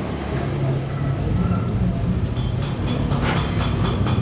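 An engine running steadily with an even, low pulsing rumble, and a few light sharp clicks in the second half.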